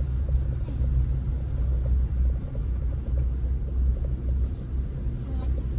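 Steady low rumble of a vehicle driving slowly through floodwater, heard from inside its cabin.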